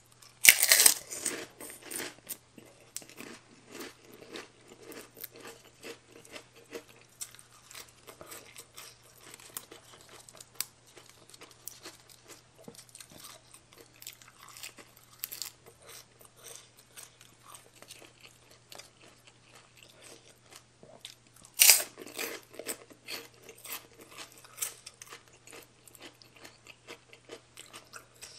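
Close-up eating sounds: loud crunching bites into crispy pork rinds about a second in and again around twenty-two seconds, with steady wet chewing in between.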